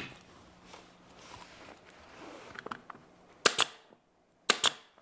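Pneumatic pin nailer firing, four sharp pops in two quick pairs about a second apart, tacking wood shims to a door trimmer. A few faint knocks come before the pops.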